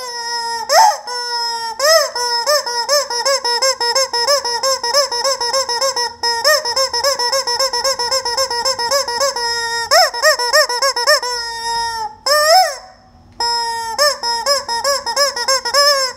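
Chicken calling in long runs of rapid, squeaky notes, about four or five a second, with a few brief breaks.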